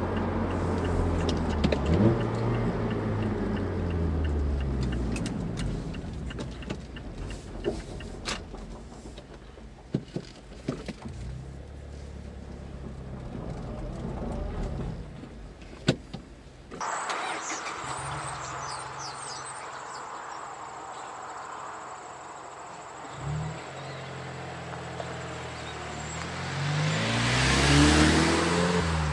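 Mazda 3's 2.5-litre four-cylinder, breathing through a K&N short ram intake and a Corksport axle-back exhaust, doing two accelerating passes. In the first, the engine note rises and then fades away. After an abrupt cut, the second builds to its loudest as the car goes by near the end.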